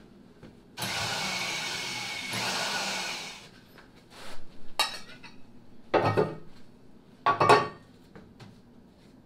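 Corded drill with a hole saw cutting through the console top for about two and a half seconds, then stopping. Light rattling follows, then two loud clunks as metal cup holders are set into the freshly cut holes.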